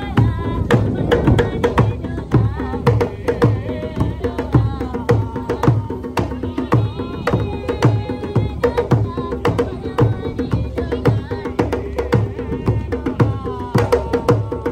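African hand drumming on djembe-style drums, a steady beat of about two strokes a second, with a voice singing over it.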